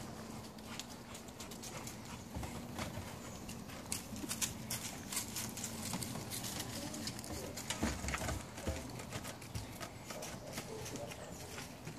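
Irregular scuffs, crunches and clicks of puppies' paws and footsteps on gravelly dirt, busiest in the middle.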